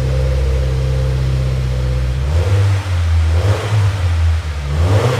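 2015 Subaru WRX's turbocharged flat-four idling steadily through a freshly fitted Invidia N1 cat-back exhaust; about two seconds in the exhaust note turns uneven and lumpy, with a couple of brief surges.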